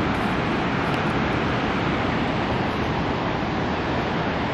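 Steady rushing roar of a waterfall in the gorge below, an even, unbroken noise.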